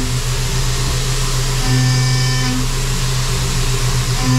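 CNC machining center milling an aluminum LS engine block under flood coolant: a steady hiss of coolant spray and chips. A pitched cutting hum comes in for about a second at a time, once about one and a half seconds in and again at the very end, as the end mill engages the aluminum.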